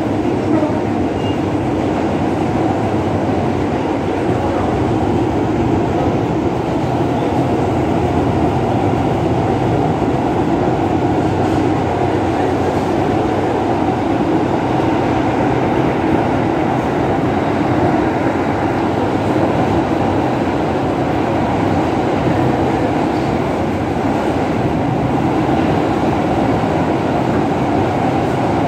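Steady rumble and rattle of a New York City Subway L train car running at speed, heard from inside the car.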